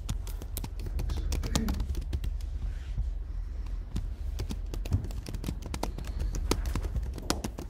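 Scattered light clicks and taps of typing on a laptop keyboard and pens writing on paper at the meeting tables, picked up by the table microphones, over a steady low hum.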